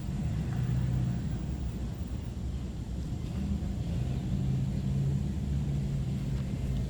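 Low, steady engine rumble with a held hum, from a motor vehicle or aircraft passing at a distance.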